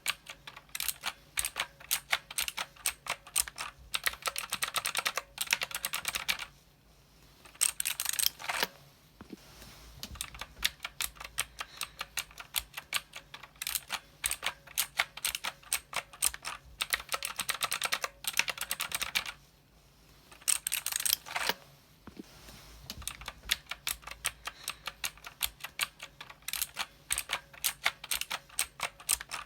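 Typing on a mechanical keyboard: fast, continuous keystroke clicks, broken by two brief pauses about seven and twenty seconds in.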